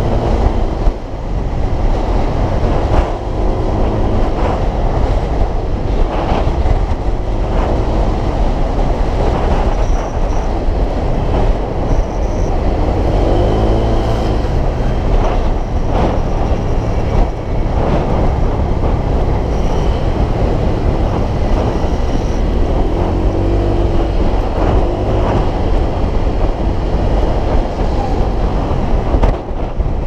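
Motor scooter riding along with steady wind and road rumble on the microphone. The engine note rises and falls a few times as the rider speeds up and slows.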